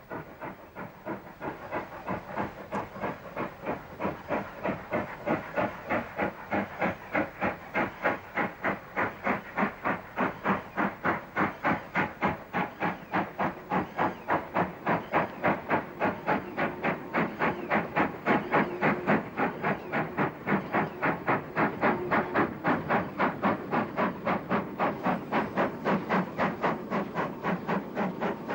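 Steam locomotive working a heavy goods train: a quick, even rhythm of exhaust beats with steam hiss, growing louder over the first several seconds and then holding steady.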